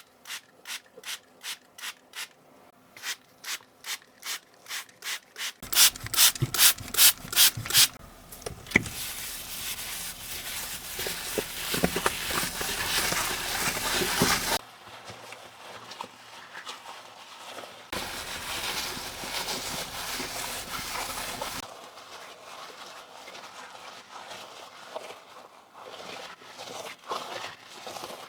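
Brush scrubbing a dirty keyboard. It starts as short, even strokes about three a second, louder for a couple of seconds, then turns into fast continuous scrubbing for several seconds, stops, scrubs again, and ends in fainter scratchy rubbing.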